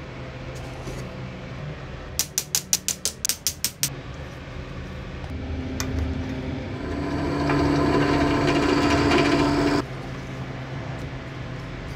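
A quick run of about ten sharp taps, then a drill press running and its bit cutting through a thin metal spacer plate, a steady hum with a grinding cut that builds for a few seconds and stops suddenly near the end.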